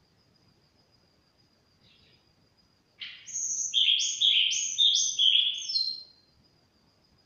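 A caged songbird, the kind kept and sold in Indonesia as a 'sulingan', sings a loud burst of about five quick, falling notes. The burst starts about three seconds in and lasts about three seconds. A faint, steady high whine runs underneath.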